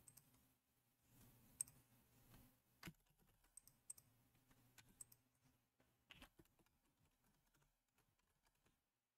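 Faint, scattered clicks of typing on a computer keyboard.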